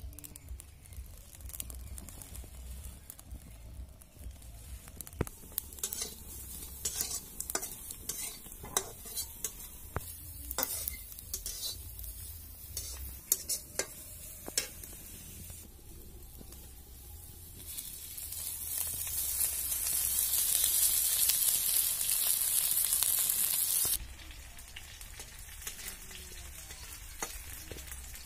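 Irregular crackles and snaps from a stick fire in a clay stove. About two-thirds of the way in comes a loud frying sizzle in hot oil in an iron kadai. It builds for a few seconds, then cuts off abruptly.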